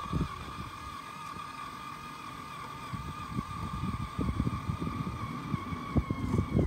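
Small electric drive motor and plastic gearing of a 3D-printed RC model traction engine whining steadily as it drives along. An irregular low rattle and rumble from the plastic wheels grows from about three seconds in.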